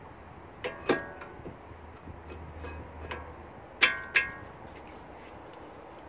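Sharp metallic clinks as a brake caliper carrying new pads is fitted back over the front brake disc, metal knocking on metal. There are two pairs of ringing clinks, about a second in and again about four seconds in.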